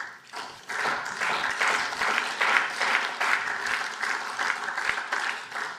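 Applause from members of a parliamentary chamber, marking the end of a speech; it thins out near the end.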